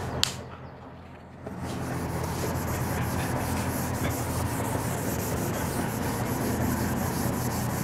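A hand wiping marker writing off a whiteboard: a steady scrubbing rub that starts about a second and a half in, after a short click near the start.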